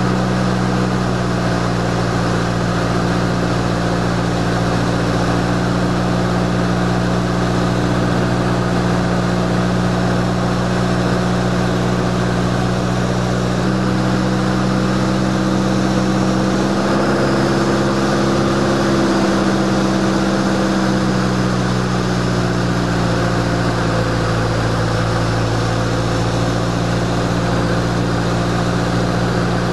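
Light aircraft piston engine and propeller droning steadily, heard from inside the aircraft carrying the camera. The drone rises slightly in pitch about halfway through, then settles back.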